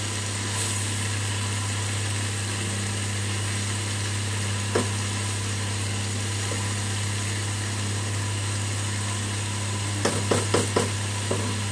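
Spatula stirring cabbage and peas in a kadhai, with a sizzle and a steady low hum underneath. It knocks on the pan once about five seconds in, then scrapes and knocks quickly several times near the end.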